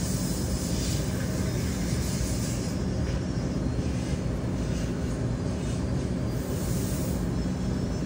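Steady low rumbling noise, even throughout with no distinct knocks or clicks.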